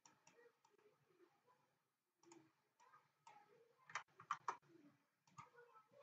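Faint computer keyboard keystrokes and mouse clicks, with a quick run of keystrokes about four seconds in as a number is typed.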